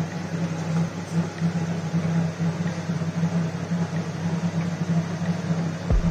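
A steady mechanical hum with a hiss over it, like a fan or appliance motor running in the room, with a low thump near the end.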